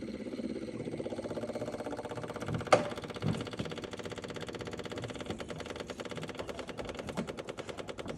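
John Deere subcompact tractor's electric fuel pump ticking rapidly and evenly as it primes the fuel system after a fuel filter change, filling the filter bowl with diesel and pushing the air out. A single sharp click comes nearly three seconds in.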